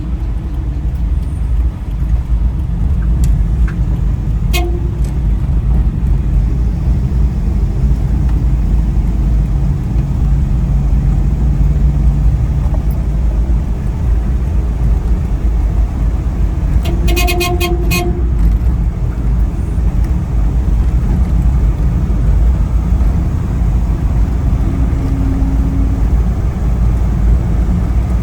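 Road vehicle running with steady engine and road rumble. A vehicle horn gives a short toot about four and a half seconds in and a longer honk of a second or so around seventeen seconds in.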